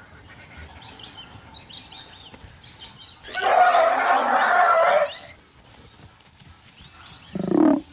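A young African elephant calf screaming loudly for about two seconds as it is attacked, then giving a shorter, lower call near the end; faint bird chirps come before it.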